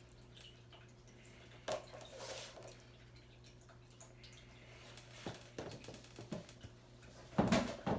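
Small indoor waterfall fountain trickling and dripping over a steady low pump hum, the fountain running low on water. Light taps and a couple of louder knocks, the loudest near the end, come from things being handled.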